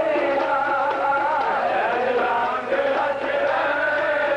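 Sikh kirtan: a sung melody that slides up and down over steady harmonium tones.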